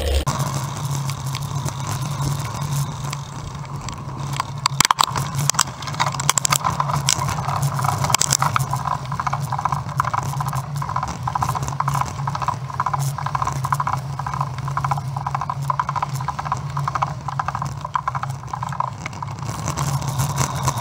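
A road bike rolling downhill, heard through its handlebar-mounted camera: a steady low hum with rapid rattles and knocks from the mount and frame over the road surface, thickening a few seconds in.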